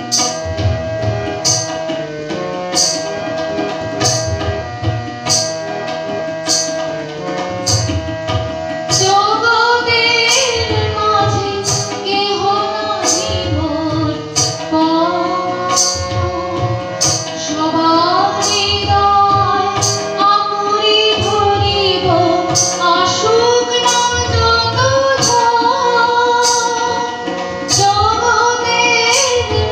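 Harmonium playing a melody alone for about the first nine seconds, then a woman singing over it, with an even percussion beat throughout.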